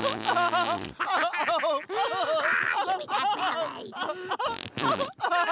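Cartoon baby giggling and laughing in quick, repeated bursts while his belly is being kissed.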